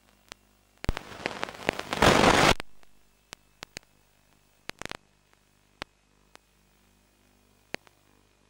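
Crackling static: scattered sharp clicks, with a loud burst of hissing noise about a second in that is loudest around two seconds and fades out by three seconds.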